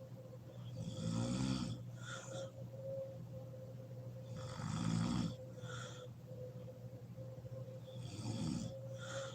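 A woman snoring in her sleep: three snores about three and a half to four seconds apart, each a low rattling snore followed by a short breathy puff.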